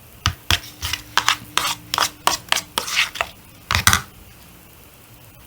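Sticky, jiggly clear-shampoo-and-salt slime being handled and stretched, making a run of short irregular clicks that stop about four seconds in.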